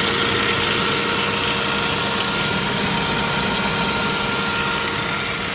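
Saab 9-5 Aero's 2.3-litre turbocharged four-cylinder engine running steadily, with a constant whine held over the engine noise. The noise comes from a failing water pump, at first taken for an oil filter problem in the sump.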